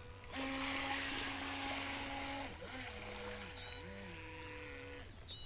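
Small RC jet boat running on the water: the electric motor's whine and the hiss of water from the jet pump. It starts about half a second in, the pitch shifts as the throttle changes partway through, and it drops off shortly before the end.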